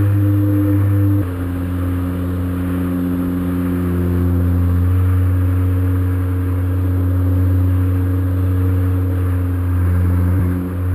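Background music of low, sustained synth chords that change every few seconds, the first change about a second in.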